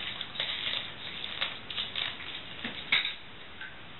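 Wheaten terrier puppies scuffling in play: irregular scratchy rustles and clicks, with one sharper knock about three seconds in.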